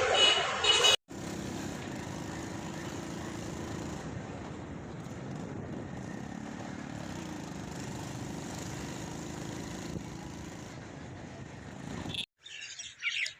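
Steady, even running noise of a vehicle on the move, cut off abruptly about a second in and again near the end.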